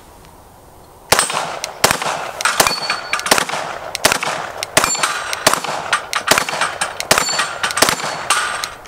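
A compensated 9mm Glock 19 (Roland Special with KKM compensator) firing a quick string of about a dozen shots of 115-grain ammunition, starting about a second in, each answered by the clang and ring of steel plates being hit and knocked down.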